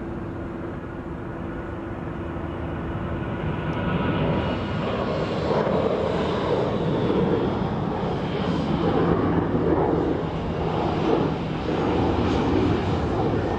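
Jet engines of an Airbus A340 airliner running, a steady jet hum that grows louder about four seconds in as the four-engined jet taxis close by.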